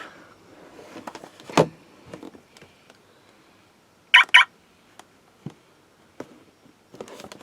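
Two quick electronic beeps from a My Little Pony Pinkie Pie toy remote-control car's sound effect, the loudest thing here, about four seconds in. Light plastic handling clicks and one sharper knock come before them.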